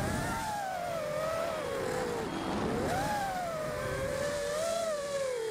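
Realacc FPV quadcopter's brushless motors and propellers whining in flight, over a rushing hiss. The pitch rises and falls with the throttle: it dips about halfway through, climbs again, then slowly falls toward the end.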